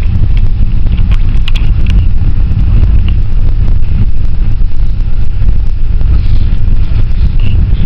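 Loud, steady low rumble of road and engine noise heard inside a moving passenger van, with a few faint rattles.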